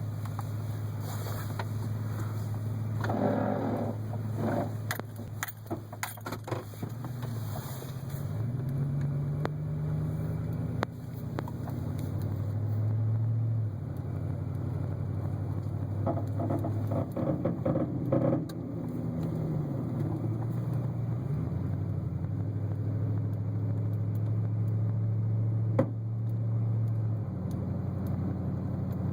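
2008 GMC Sierra 1500 4WD pickup running, its engine note rising and falling at times, with clusters of popping and clicking from the front end a few seconds in and again around the middle, and one sharp pop near the end. The owner takes the popping for a bad wheel bearing.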